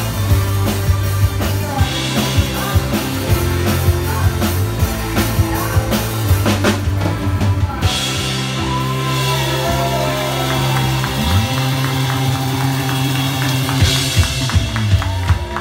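Live rock band playing: drum kit and electric bass keep a steady beat, with a woman singing over them and cymbals crashing from about halfway through.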